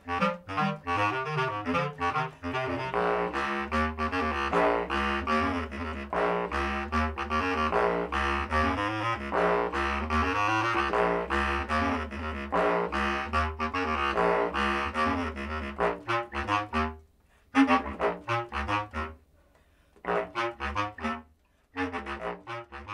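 Two bass clarinets playing a duet: fast, rapidly repeated notes over very low notes in the instrument's bottom register. About 17 seconds in, the playing breaks into short phrases with silences between them, then stops.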